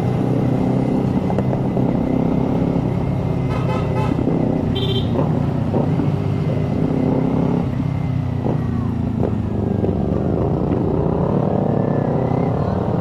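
Motorcycle engine running steadily under way, heard from the rider's own bike, with a short high beep about five seconds in.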